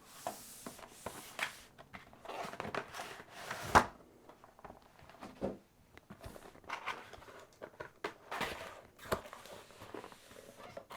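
Cardboard packaging being handled and opened: scattered rustles, scrapes and soft knocks, with one sharper knock about four seconds in.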